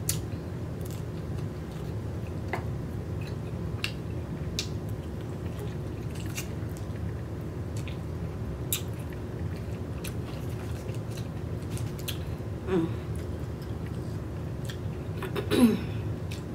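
A person chewing and slurping a cooked oyster off its half shell, with scattered wet mouth clicks and smacks over a steady low background hum. Near the end come two short falling "mm" hums, the second the loudest.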